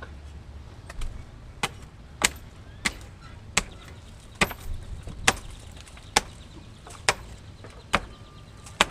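Tomahawk chopping into palm tree roots: about eleven sharp strikes, roughly one every second.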